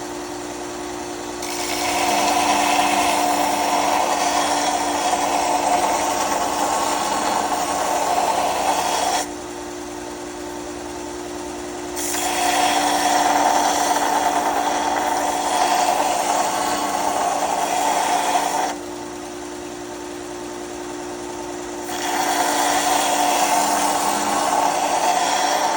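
Bench sanding machine running with a steady motor hum, broken by three long stretches of louder rasping grinding, each starting and stopping abruptly.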